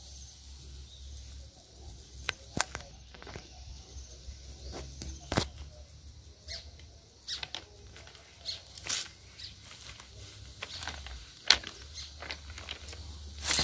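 Irregular footsteps, scuffing and clicking at uneven intervals, over a low steady rumble.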